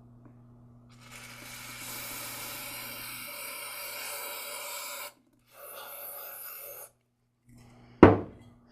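Two bursts of hissing spray blown through small carburetor parts to clear their passages, the first about four seconds long, the second shorter. A short, loud sound falling in pitch comes near the end.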